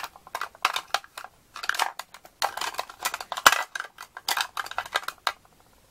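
Lipstick tubes and gloss bottles clicking and rattling against each other as a hand rummages through them in a makeup case, in irregular clusters of small clicks, with one sharper click about three and a half seconds in.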